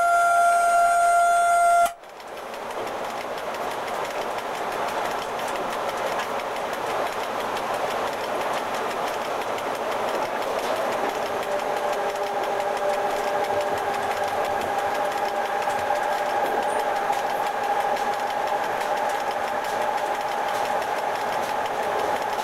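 The horn of an FS E.656 electric locomotive sounding one steady note, cut off about two seconds in. Then the locomotive's cab noise as it runs along the track, slowly growing louder, with a steady whine coming in about halfway through.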